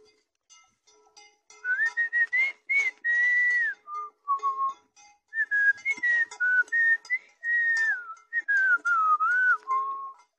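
A tune whistled in several gliding phrases, starting about a second and a half in and ending near the end, over light plucked-string background music.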